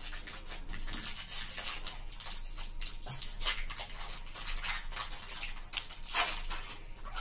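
Foil wrapper of a Pokémon booster pack crinkling and tearing as it is worked open by hand, a quick run of sharp crackles with louder ones about three and six seconds in.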